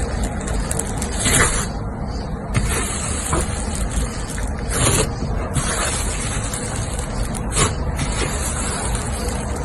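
Slime being squished and poked by hand: a steady noisy texture broken by a few sharper pops, about four in all.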